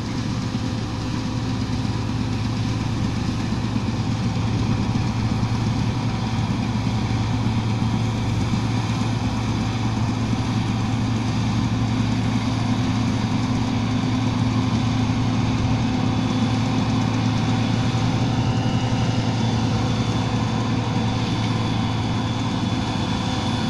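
John Deere 2266 combine harvester running while cutting rapeseed: a steady diesel drone with a strong low hum and a few fainter steady higher tones, getting slightly louder over the first few seconds.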